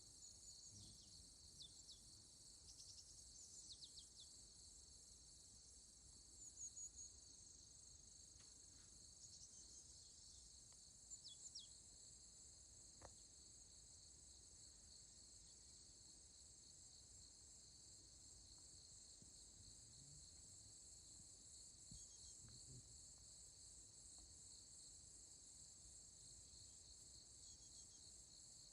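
Faint steady chorus of crickets and other grass insects, a continuous high trill, with a few short bird chirps breaking in during the first half.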